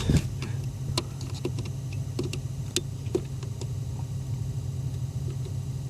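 Scattered small clicks and taps of a test light probe against fuses in a car fuse box, over a steady low hum.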